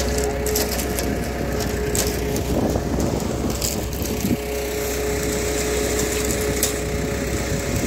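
Transit mixer truck's engine running steadily with a constant hum, with a few short clicks and scrapes over it.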